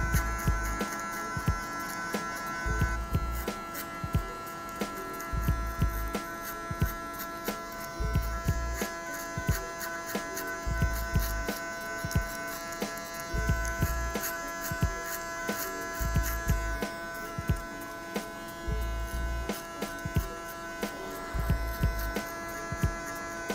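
Cordless electric hair clipper running with a steady hum as it cuts short hair up the nape and side of the head. Background music with a slow, regular low beat plays under it.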